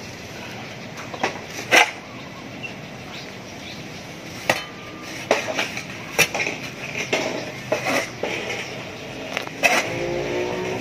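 Metal shovel digging into and turning a pile of composting sawdust substrate, its blade scraping and knocking against the ground in a string of irregular strikes about a second apart.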